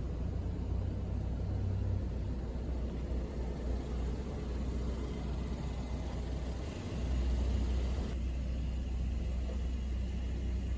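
A steady low rumble with a faint hiss behind it, swelling a little about seven seconds in; the background changes abruptly about a second later.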